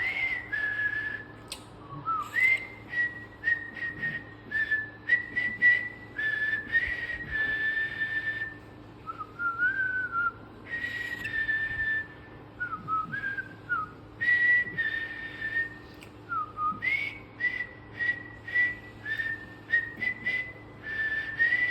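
Cockatiel whistling a learned tune: a long run of short, clear notes mostly on one pitch, many opening with a quick upward swoop, with a few lower wavering notes in the middle. A faint steady hum runs underneath.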